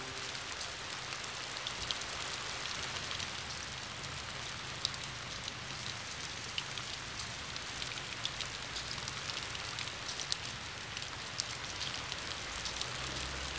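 Steady rain falling, with many small drop ticks throughout.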